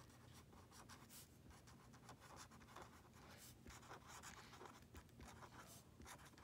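Faint scratching of a pen writing cursive on paper, in short, irregular strokes.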